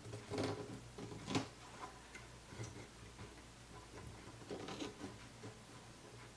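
Tim Holtz craft snips trimming a piece of matboard: a few faint, sharp snipping clicks at irregular intervals.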